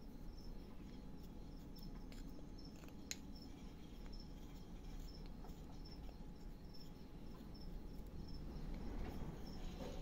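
Quiet hand whittling of a small wooden stick with a carving knife: faint cuts and scrapes, with one sharp click about three seconds in. Faint, evenly repeated high chirps run behind it.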